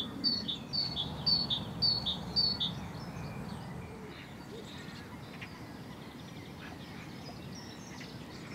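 A small songbird singing a run of about six quick, evenly repeated high two-note phrases, each stepping down in pitch, which stops about three seconds in. After that only a faint outdoor hiss remains, with a few soft distant calls.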